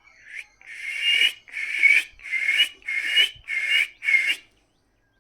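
Parrot screeching six harsh calls in a quick, even series, each about half a second long.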